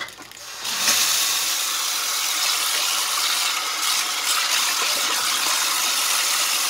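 Kitchen tap turned on about a second in, its water stream running steadily into the sink basin.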